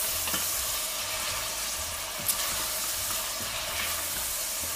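Lamb pieces and chopped onion sizzling as they fry in olive oil in a stainless steel pot, stirred with a wooden spoon, with a single sharper knock about two seconds in.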